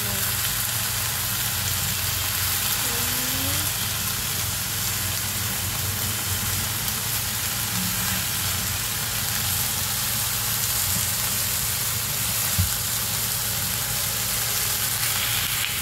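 Lamb shanks and sliced shallots sizzling steadily as they brown in oil in an enamelled cast-iron pan, over a low steady hum. One short knock about three-quarters of the way through.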